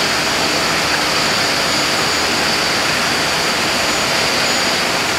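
Steady rushing of a waterfall: an even, unbroken hiss of falling water with a faint steady high tone over it.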